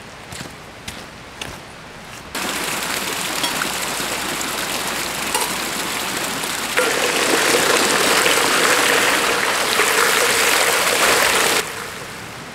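Footsteps on wet gravel, then water pouring steadily from a hose and splashing over stones into a stone basin. About seven seconds in it gets louder and takes on a hollow tone, as of a metal kettle being filled under the stream, and it cuts off suddenly near the end.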